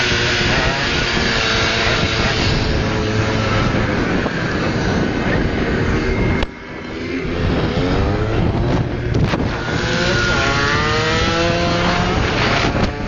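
50cc two-stroke dirt bike engines running and revving on the move, their pitch rising repeatedly in the second half, with wind noise on the microphone.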